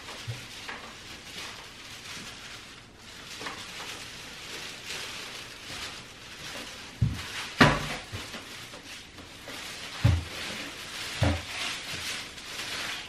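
Steady rustling with a few dull thumps and one sharp knock about two-thirds of the way through.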